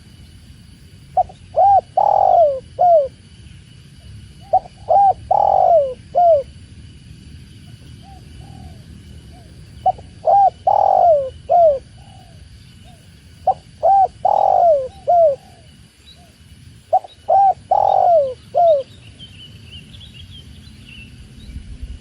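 Spotted dove cooing: five phrases of several notes each, spaced a few seconds apart, over a steady low rush of running water. A small bird chirps faintly near the end.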